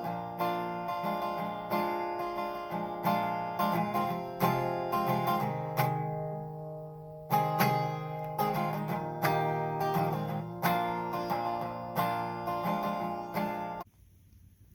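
Acoustic guitar strummed in a steady rhythm, chords ringing between strokes. It lets one chord ring out about six seconds in, then stops abruptly shortly before the end.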